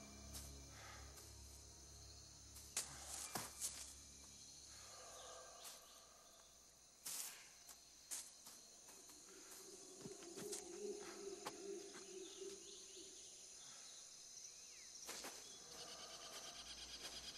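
Faint woodland ambience: a steady high insect drone with bird chirps, broken by a few sudden sharp cracks.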